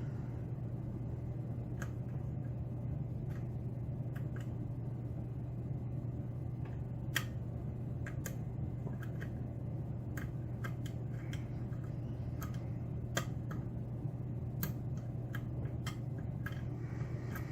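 Scattered light metallic clicks of a dimple lock pick and tension tool working the pins of a Mauer SKG dimple lock, spaced irregularly, over a steady low hum.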